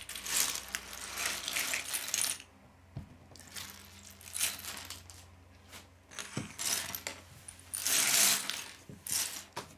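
Loose plastic Lego pieces clattering and rattling as hands sweep them across a wooden tabletop into a pile, in four or five bouts of a second or two each.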